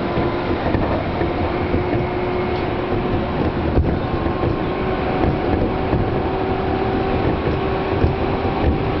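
Seibu Ikebukuro Line commuter train running, heard from inside the carriage: a steady rumble of wheels on the rails with a steady whine over it, and two short clicks, one midway and one near the end.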